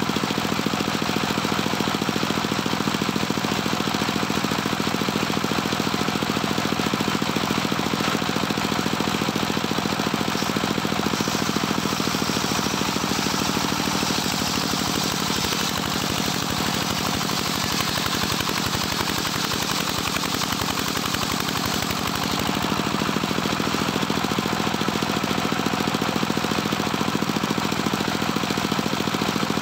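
Engine-driven homemade circular sawmill running steadily while a teak log is fed through its blade. Partway through, the hiss of the blade cutting grows louder for several seconds and the engine note drops a little under the load of the cut.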